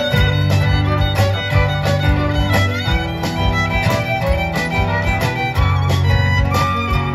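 Live acoustic band playing an upbeat bluegrass-style tune: the fiddle carries the melody over upright bass and acoustic guitar, with a steady beat.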